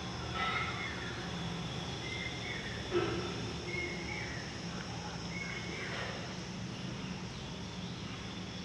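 Faint chirps of small birds every second or so over a steady low hum, with one soft knock about three seconds in.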